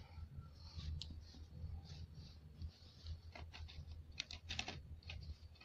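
Quick small clicks and light taps from pastel drawing materials being handled, in two short clusters around the middle, over a low steady hum.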